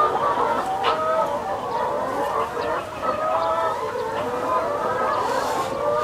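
A flock of chickens clucking and calling over one another, steadily throughout.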